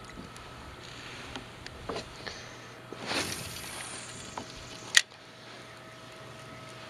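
Spinning rod and reel being handled in a kayak: a few light clicks, a short rushing noise about three seconds in, and a sharp knock about five seconds in, over a faint steady whine.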